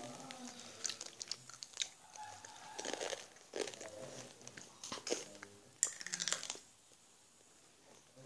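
Satin ribbon rustling and crinkling as it is handled and folded, with many small clicks, under faint low voices. The handling noise stops near the end and it goes quiet.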